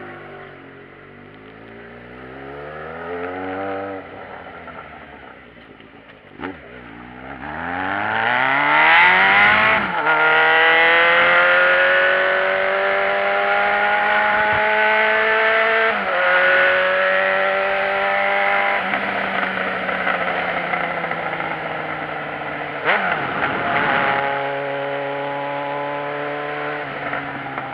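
Motorcycle engine pulling away and accelerating through the gears. The pitch climbs steadily and drops back at each gear change, several times, and it gets louder once it is moving at speed.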